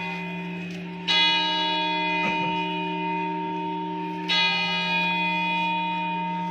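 Background music: sustained ringing chords over a steady low drone, with a new chord struck about a second in and again a little past four seconds, each slowly fading.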